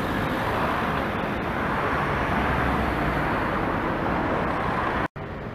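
Steady road traffic noise from a city street, a little louder in the middle. It cuts out for a moment near the end and comes back quieter.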